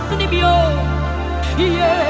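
A woman singing a gospel worship song into a microphone over instrumental backing with held bass notes, her voice sliding between notes.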